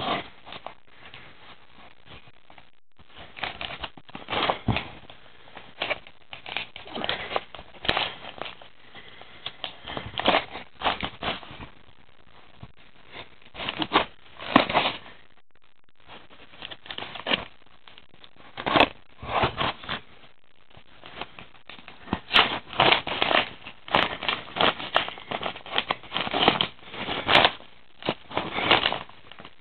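Kraft-paper padded bubble mailer being handled and torn open by hand: irregular bursts of crinkling and rustling paper with short pauses between them.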